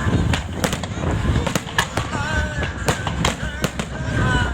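A fireworks display going off in a rapid, irregular barrage of sharp bangs, about three a second, over a continuous low rumble.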